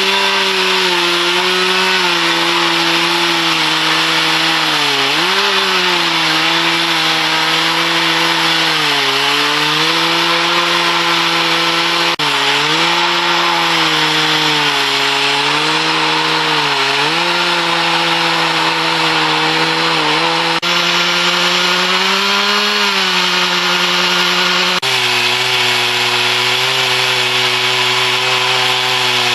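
Petrol chainsaw ripping lengthwise through an oak log on a milling bench, running at high revs under load. Its note sags and recovers several times as the chain bites, and drops to a lower, steady pitch about 25 seconds in.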